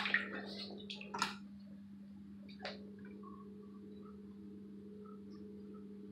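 A machine's steady low hum runs throughout, with a few sharp wet knocks and scuffs in the first three seconds, from footsteps on a damp floor in a flooded basement.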